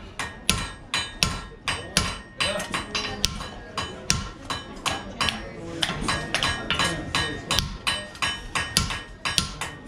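Hand hammer striking a handled hot chisel driven into red-hot steel on a 357 lb Fisher anvil to slit the eye of a hammer head. There are about two to three sharp blows a second, with a metallic ring lingering between them.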